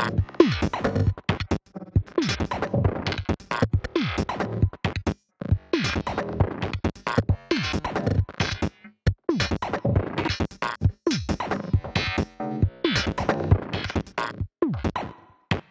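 Electronic music playing from Reason: a choppy drum-machine and synthesizer pattern with dense hits, many of them drum tones falling in pitch, broken by short gaps. It plays through Reason's SSL mixer while its channel settings are adjusted.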